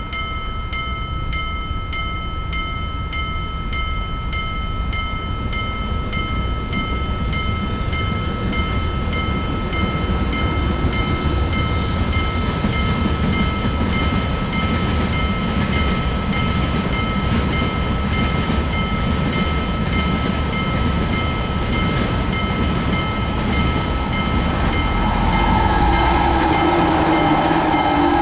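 Japanese railroad crossing warning bell ringing steadily, about two strikes a second, while a train rumbles through the crossing and grows louder. Near the end a new sustained tone joins in over the rumble.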